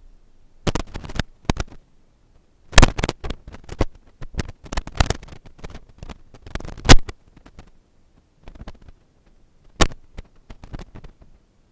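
A scatter of irregular, sharp clicks and knocks, loudest about three seconds in and again near seven seconds.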